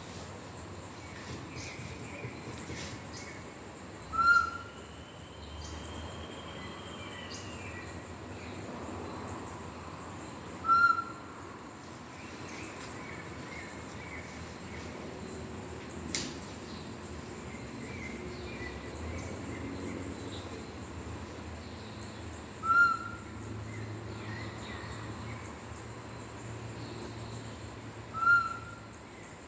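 Straight-type macuco (solitary tinamou) bird call, a wooden hunter's whistle, blown four times in short, loud whistled notes several seconds apart, imitating the tinamou's call in the pé-de-cabra style, over steady outdoor background noise.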